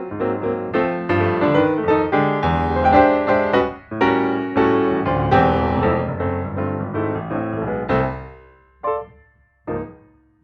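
Background piano music: a steady run of notes that thins to a few separate chords with short pauses near the end.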